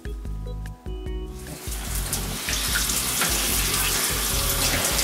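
Background music with a bass line, then a shower comes on about a second and a half in, its water spraying steadily over the music.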